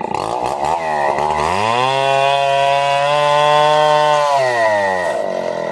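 Chainsaw engine revving up about a second and a half in, holding at high speed for a couple of seconds, then dropping back toward idle.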